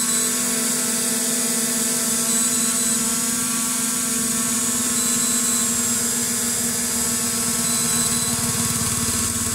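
SJRC F22S quadcopter hovering in place, its propellers and motors giving a steady whine with a fast pulsing hum. A lower rumble builds near the end.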